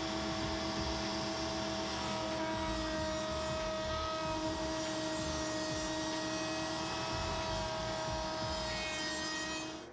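Table-mounted router running at steady speed with a 3/8-inch bearing-guided rabbeting bit, cutting a rabbet along the inside edge of an MDF ring: a constant high whine over the rush of the cut.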